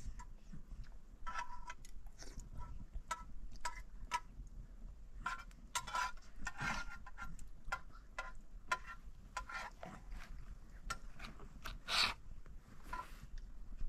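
Metal spoons clinking and scraping in a pan as food is eaten from it: irregular light clinks, several with a short metallic ring, and a louder scrape near the end.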